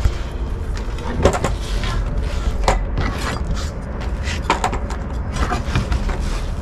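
A kitchen knife cutting through a striped bass behind the head, to take the head off, on a plastic cooler lid. There are a few sharp knocks and cracks over a steady low hum.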